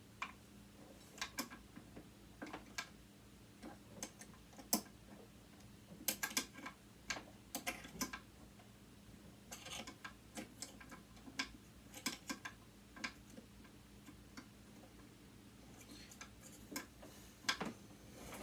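Irregular small clicks and taps of hand tools on the metal parts of a sewing machine motor during dismantling, some coming in quick clusters, over a faint steady hum.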